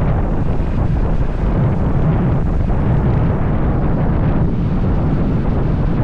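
Heavy wind buffeting on the microphone of a camera riding on a moving motorcycle: a loud, steady low rumble that masks any engine sound.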